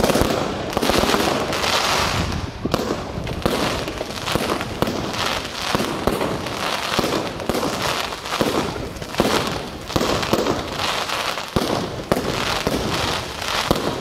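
Aerial fireworks bursting in a continuous barrage: many sharp bangs and pops in quick succession, with no pause.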